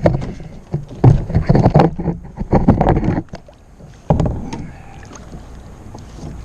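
Close-up knocks, thumps and clatter against a kayak's hull and gear while a freshly landed rock bass is handled, with a dense run of thumps about a second in lasting two seconds and another sharp knock about four seconds in.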